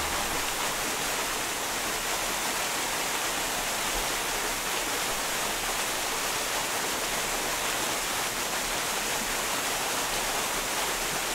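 Small waterfall: a steady, even rush of falling water that does not change.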